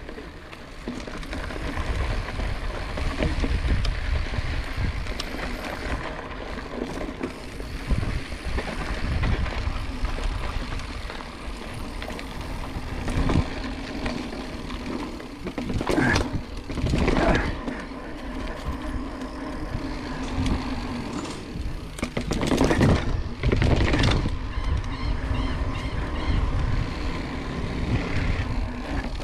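Mountain bike ridden over a dirt cross-country course: a steady rumble and rattle of tyres and frame over rough ground. It grows louder for a few seconds about halfway through and again about three quarters of the way in.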